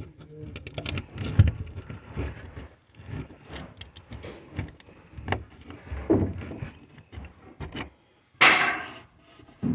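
Irregular knocks, rubs and clatter of work among wooden attic framing while a hot water line is run, with one louder noisy burst of about half a second near the end.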